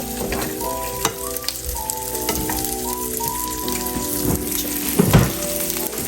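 Crackling, sizzling noise with scattered sharp clicks, over background music playing a stepping melody.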